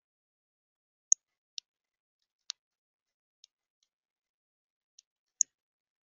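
Northern cardinal at a seed feeder making about seven short, sharp, high clicks at irregular intervals. The loudest comes about a second in and another near the end.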